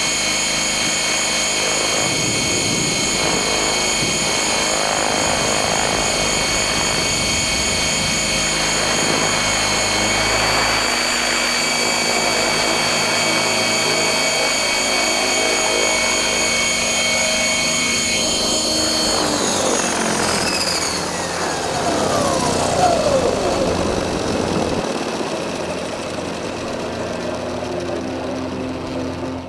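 Stretched T-Rex 600 electric RC helicopter, heard from a camera slung beneath it: the 12S electric motor and rotor run with a steady high whine over rotor wash, then spool down with a falling whine from about two-thirds of the way in as it settles on the grass and the power comes off.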